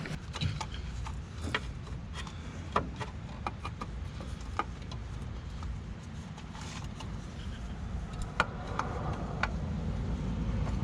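Scattered light clicks and taps of a new oil filter being handled and threaded onto its mount by hand, over a steady low background rumble.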